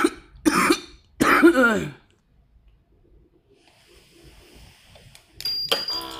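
A man coughing three times in quick succession, the last cough longer and dropping in pitch: the cough of someone sick with a sore throat. Near the end another, different sound starts, with a thin high tone.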